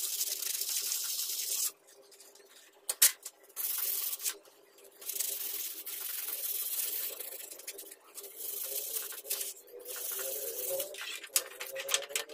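Rusty steel cleaver blade being hand-sanded with folded sandpaper: runs of dry rasping strokes with short pauses between them, and a sharp click about three seconds in. Near the end come a few quicker scratches and clicks.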